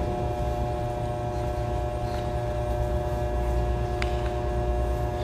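Steady electrical hum holding a few fixed tones over a low rumble, with a couple of faint clicks about two and four seconds in.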